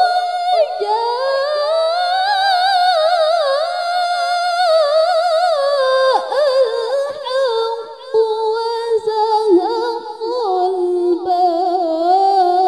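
A young woman's voice reciting the Quran in melodic tilawah style: one long drawn-out phrase with quick wavering ornaments, climbing in pitch over the first two seconds, held high, then stepping down lower through the second half.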